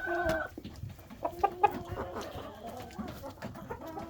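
Hens clucking in a coop: a drawn-out call that ends about half a second in, then scattered short clucks and sharp clicks, the loudest around a second and a half in.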